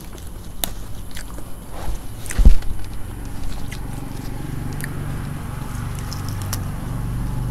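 Close-up chewing and crunching of crispy fried spring rolls and fresh lettuce leaves, with scattered crisp crackles. There is one heavy low thump about two and a half seconds in, and a low steady hum underneath from about halfway on.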